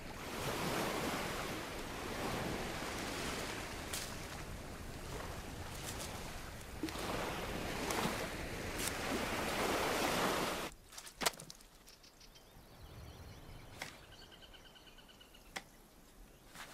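Sea surf washing steadily onto a sandy beach, cutting off suddenly after about ten seconds to a much quieter background with a few faint clicks.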